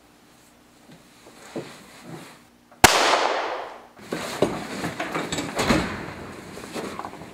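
A single gunshot about three seconds in: one sharp crack with a long echoing decay. It is followed by a stretch of knocks and rustling.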